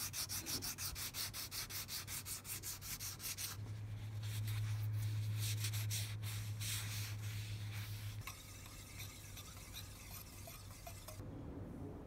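Sandpaper rubbed by hand back and forth over the wooden handle of a Stanley Yankee 135A ratchet screwdriver, in quick even strokes about four a second. After about three and a half seconds the strokes turn irregular and a steady low hum comes in for a few seconds, then the rubbing fades to faint scratching.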